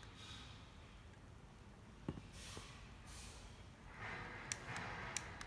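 Faint breathing close to the microphone, then a few sharp, light clicks about four and a half seconds in, from buttons being pressed on a wireless doorbell receiver to change its mode.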